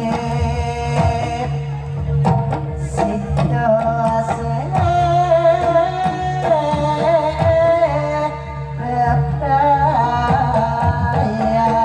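Javanese barongan accompaniment music: regular drum strokes and steady low tones under a sustained, wavering melody line.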